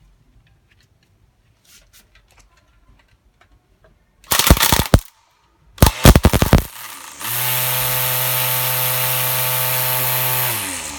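YATO YT-85110 battery-powered string trimmer switched on twice in short bursts, its freshly threaded nylon line clattering, then run steadily for about three seconds with an even whirring hum. Near the end it is released and winds down, the pitch falling.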